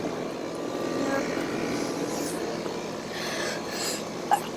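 Rooftop air-conditioning condensing units running: a steady whoosh of the condenser fans with a low machine hum. A brief sharp noise comes near the end.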